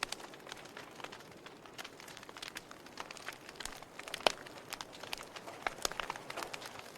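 Wood fire burning in a fireplace, crackling steadily with irregular sharp pops and snaps over a soft hiss; the sharpest snap comes a little over four seconds in.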